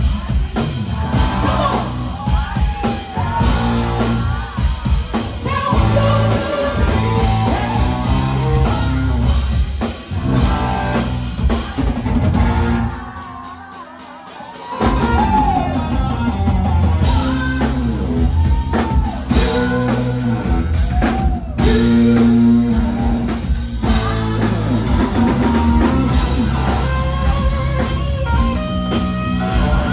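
Live rock band playing: a woman's lead vocals over drum kit, electric bass and electric guitar. About halfway through, the band drops out for roughly two seconds, then comes back in.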